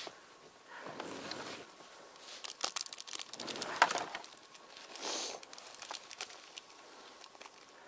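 Deep powder snow crunching and clothing rustling in irregular bursts, with a few sharp clicks, as a rider hauls and tips a stuck snowmobile lying on its side; the engine is not running.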